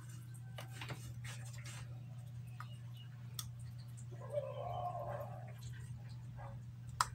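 Faint ticks and taps of hand soldering on a TV circuit board, over a steady low hum. A brief faint wavering sound comes about four seconds in, and a single sharp click near the end.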